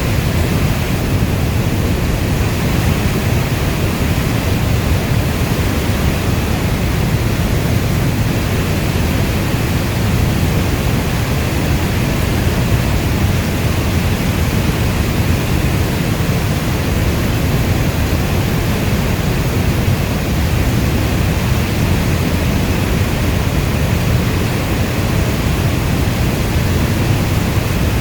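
Steady, dense rain ambience weighted toward the low end like brown noise: an even wash with no separate drops, thunder or other events.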